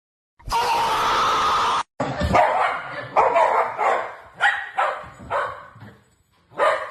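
A dog barking several times at uneven intervals.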